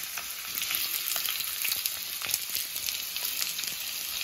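Thickly sliced onion frying in hot oil in a kadhai: a steady sizzle with scattered small crackles.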